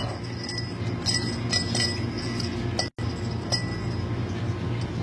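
Scattered light clinks and ticks over a steady low hum. The sound cuts out completely for an instant about three seconds in.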